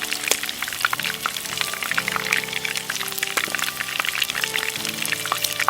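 Battered chicken tempura deep-frying in a pan of hot oil: a dense, continuous crackling and sizzling, heard alongside background music.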